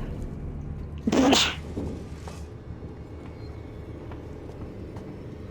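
A person sneezing once, about a second in.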